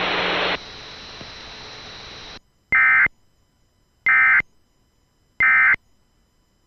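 Emergency Alert System end-of-message signal: three identical short, loud bursts of screechy digital data tone, evenly spaced about a second and a half apart, marking the end of the AMBER alert. They are preceded by the static hiss of the alert's audio, which drops about half a second in and then cuts out.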